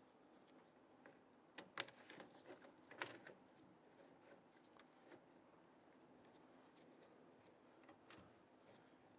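Near silence with a few faint, sharp clicks and taps of parts and tools being handled inside a car door: a couple about two seconds in, one about three seconds in, and a softer one near the end.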